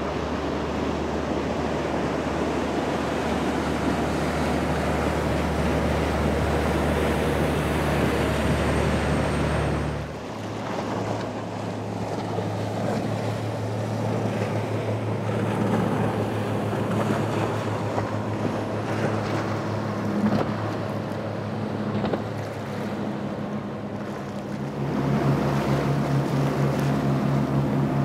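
Outboard-powered boats running at speed one after another, each a steady engine drone over rushing water and spray: a Boston Whaler's outboard, then a center-console fishing boat's outboard from about ten seconds in, then a Stingray's single Yamaha 150 outboard near the end. The engine note changes abruptly at each switch.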